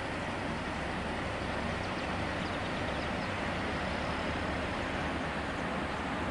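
Steady engine and road noise of a car on the move.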